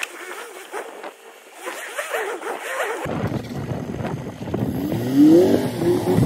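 Vehicle engine under load as a van is towed out of mud by a pickup on a strap, revving up in a rising pitch about four and a half seconds in and then holding steady.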